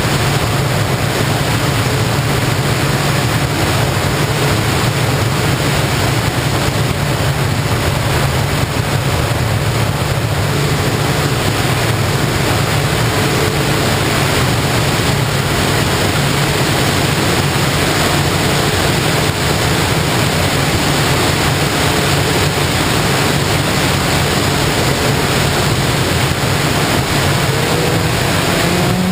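A FPV model plane in flight: its electric motor and propeller hum steadily under a loud, even rush of wind.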